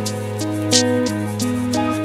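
Background music: held instrumental notes changing every half second or so, with a few light percussive hits.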